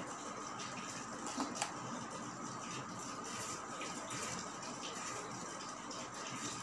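Soft, repeated scraping of a metal utensil peeling the skin off a green vegetable by hand, with a couple of small clicks about a second and a half in, over a steady faint hum.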